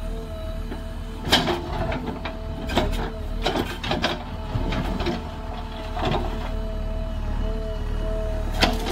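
JCB 3DX backhoe loader's diesel engine running with a steady whine over it, and sharp clanks and knocks from the working machine at irregular intervals.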